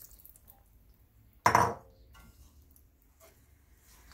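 Glass bowl set down with a single sharp clunk about a second and a half in.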